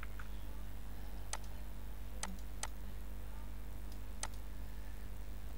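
Computer mouse clicking four times, sharp and short: once about a second in, twice close together near the middle, and once near the end, over a steady low electrical hum.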